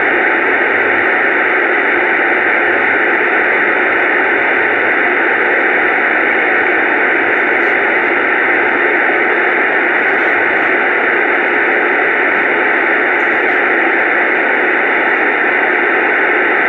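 Steady, loud static hiss with no voice or music in it, like a radio tuned between stations.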